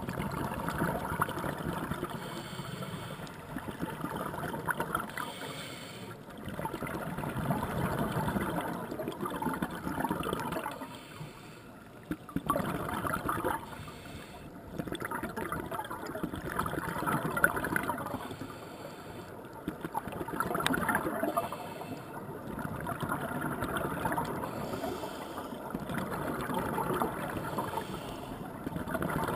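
Scuba regulator exhaust bubbles burbling underwater as the diver breathes out, in swells of about two to four seconds with quieter gaps for each breath in, repeating about every three seconds.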